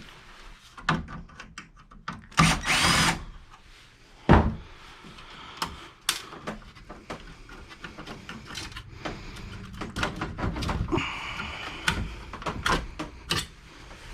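Cordless drill-driver whirring in short runs, once briefly about two and a half seconds in and again for about two seconds later on, between clicks and knocks of computer parts being handled while an old computer is taken apart.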